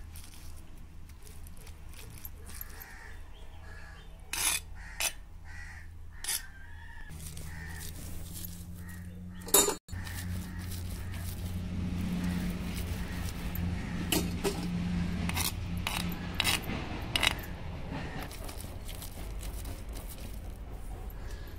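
A stone roller rolling over a flat stone grinding slab (pata-varvanta), crushing hot cooked chana dal and jaggery into puran. A few short sharp knocks stand out. Crows caw in the background.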